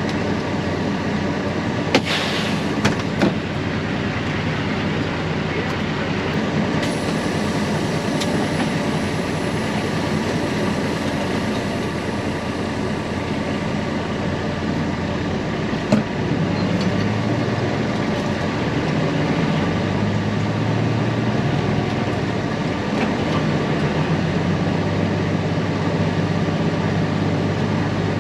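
Heavy machinery running steadily, with a deeper engine drone growing stronger about halfway through. A few sharp knocks sound near the start and once around the middle.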